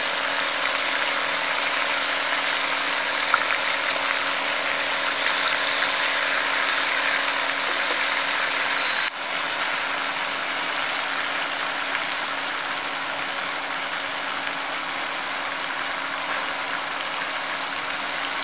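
Masala-coated prawns shallow-frying in hot oil in a pan: a steady, crisp sizzle, with a faint steady hum underneath. The sound dips briefly about halfway through.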